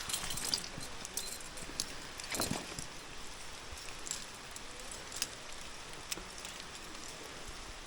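Steady rain hiss with scattered small clicks and clinks of metal climbing gear being handled, and one louder knock about two and a half seconds in.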